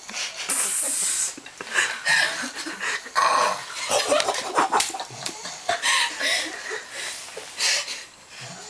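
Stifled laughter: irregular snorting, breathy bursts and giggles from people trying to keep quiet.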